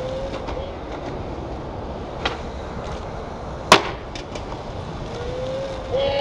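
Skateboard on concrete: wheels rolling under a steady noisy rumble, a sharp clack about two seconds in, and a loud slap of the board hitting the ground a little before four seconds, followed by a few lighter clacks.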